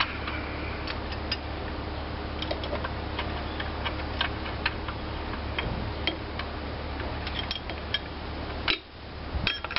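Light metallic clicks and ticks of a wrench working a nut loose on an antique engine, irregularly spaced, over a steady low hum.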